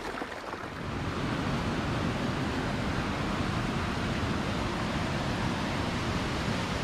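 Steady rush of a rain-swollen river running in rapids, coming in about a second in.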